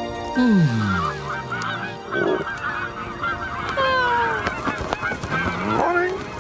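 A flock of geese honking and cackling in many overlapping short calls, as a cartoon sound effect. It opens with a loud falling glide about half a second in.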